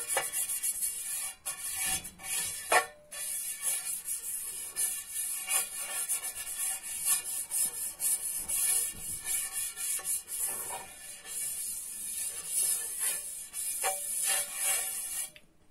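Pastry brush rubbing oil over a non-stick crepe pan in repeated strokes, with music in the background.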